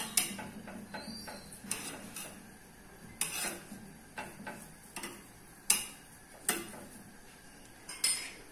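Metal spoon scraping and clinking against a pan as oil is spread over a cooking chapati: a string of short, irregular clinks about once a second.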